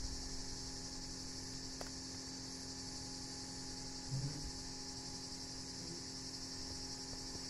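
A steady, high-pitched chorus of insects, with a faint low hum underneath and a brief soft low sound about four seconds in.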